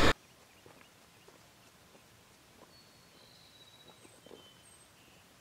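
Near silence: faint outdoor room tone, with a few short, thin, high bird chirps about three to four seconds in and scattered soft ticks.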